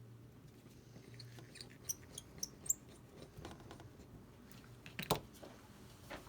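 A series of small, sharp clicks and crinkles from hands handling small parts and packaging on a workbench, with a louder double click about five seconds in.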